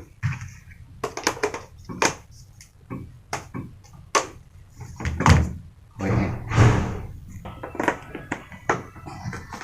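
Irregular knocks, taps and clatter of hard objects being handled, with a longer rushing noise of about a second near the middle.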